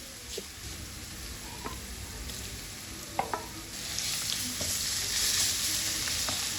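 Onions frying in oil in a cooking pot, sizzling while a spoon stirs them, with a few sharp clicks of the spoon against the pot. The sizzle grows louder about four seconds in.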